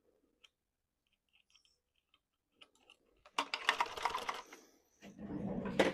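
Light clicking of small hard parts being handled, a few scattered clicks at first, then about three seconds in a dense run of quick clicks and rattles, followed by louder handling noise near the end.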